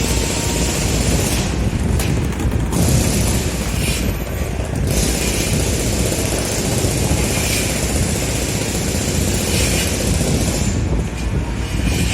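Heavy construction machinery running: a steady, loud diesel engine rumble, with a high hiss that swells and drops away every few seconds.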